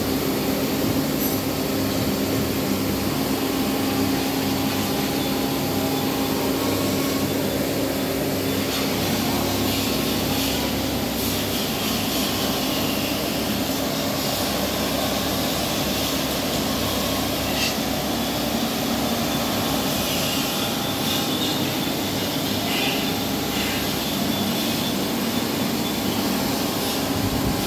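Steady mechanical hum with a constant drone running without a break, and a few faint clicks over it.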